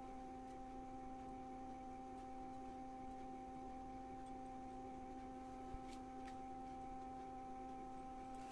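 Low, steady electrical hum with a few constant tones, and a faint tick about six seconds in.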